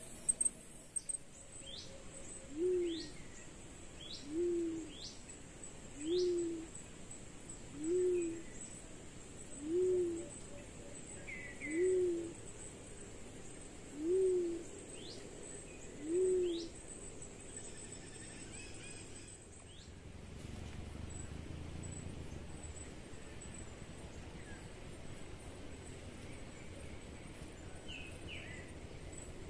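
Wild pigeon giving a low hooting coo about eight times, one every two seconds or so, then falling silent after about 16 seconds; a dominance display toward a caged bird. Small birds chirp faintly in the background.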